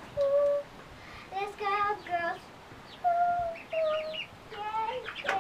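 A young girl singing a run of short notes, some held steady and some wavering, with brief pauses between phrases.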